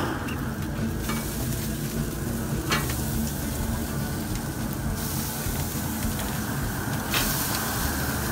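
Roast pork sizzling on an open grill grate: a steady hiss with a few sharp pops.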